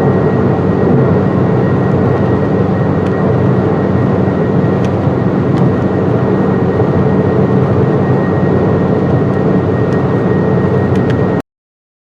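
Loud, steady radio static from an off-station or badly received radio signal, with a faint steady whistle running through the hiss. It cuts off abruptly near the end.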